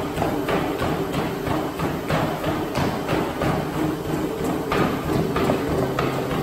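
Running footsteps thudding on treadmill belts, about three to four steps a second, some from flip-flops, over the steady hum of the treadmill motors.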